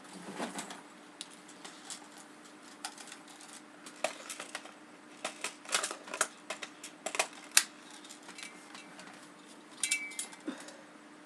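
Irregular clicks and clacks from handling an airsoft AK-74U replica, some in quick clusters, over a faint steady hum.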